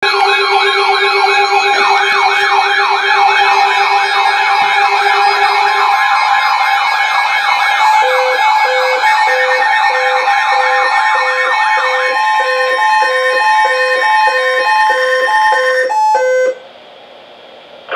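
Several electronic siren and alarm tones layered together: fast wailing sweeps that rise and fall about twice a second, a steady tone for the first six seconds, and from about eight seconds in a repeating beep about one and a half times a second. All of it cuts off suddenly a second or so before the end.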